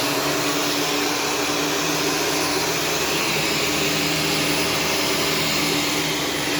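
Shark Stratos upright vacuum cleaner running steadily on thick carpet, its motor a continuous whine over the rush of air.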